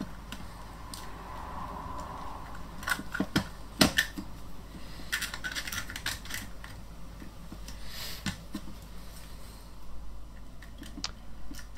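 Small plastic clicks and taps as the opened housing and wiring of a Yongnuo YN-560 speedlite flash head are handled and pressed together, scattered irregularly, with a few sharper clicks about three to four seconds in.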